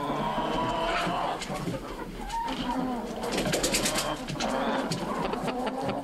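Several hens calling and clucking over one another, with a run of sharp clicks in the middle.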